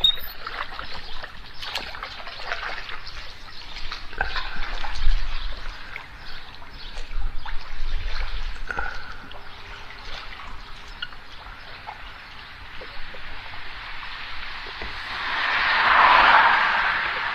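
Water trickling and splashing around a kayak, with many small drips and splashes throughout. A louder rush of water swells up near the end.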